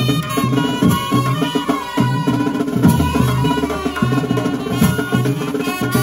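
Music carried by drums and percussion, beating a repeating rhythm under a pitched melody line.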